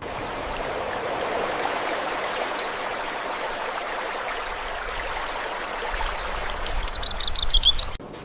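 Steady rushing of running water, with a bird giving a quick run of about seven high chirps near the end; the sound cuts off suddenly just before the end.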